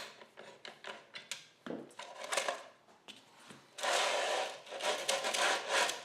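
Something scraping and rubbing on wood in quick, irregular strokes, turning into dense, continuous scraping about four seconds in.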